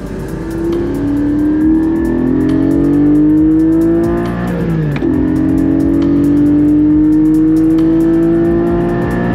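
Porsche 718 Boxster Spyder's naturally aspirated 4.0-litre flat-six at full throttle, heard from the cabin, rising steadily in pitch. About halfway through a manual upshift drops the pitch, and the engine climbs again through the next gear.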